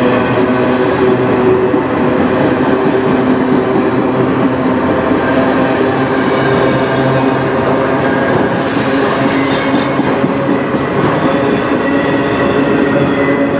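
Autorack freight cars of a CN train rolling past, steel wheels running on the rails in a loud, steady rumble with steady ringing wheel tones over it.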